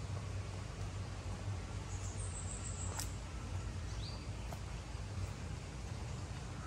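Outdoor ambience: a steady low hum and hiss with a few short, rising bird chirps and a single sharp click about three seconds in.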